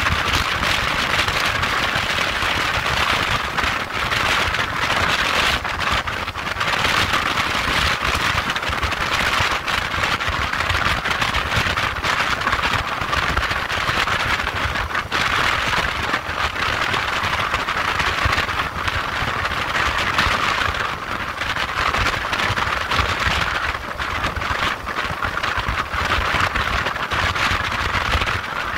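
Steady rush of wind and road noise from a motorcycle cruising at motorway speed: a rough hiss with a low rumble underneath.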